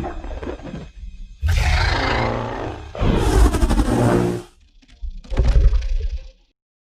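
Titanus Ghidorah monster roar sound effects: three loud roars in a row, each with a deep rumble under a pitched cry, the last one shorter.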